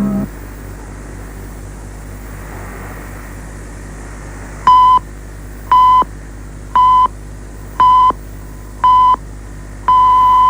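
Radio time signal over a shortwave broadcast: steady receiver hiss and hum, then six loud beeps about a second apart, five short and a longer sixth, marking the exact time of the half-hour before the station announces it.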